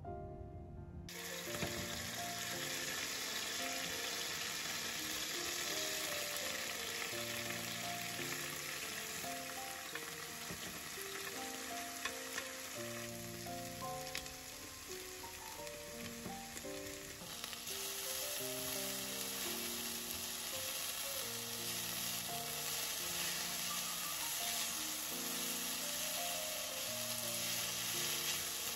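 Frying sizzle from a pan of anchovies in olive oil, then julienned potato and green pepper being stir-fried and turned with chopsticks; the sizzling starts about a second in and keeps on steadily. A soft background melody plays over it.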